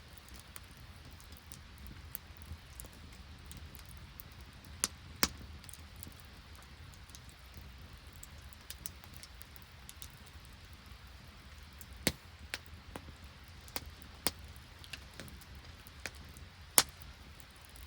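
Wood campfire crackling, with irregular sharp pops and snaps over a steady low hiss; the loudest pop comes near the end.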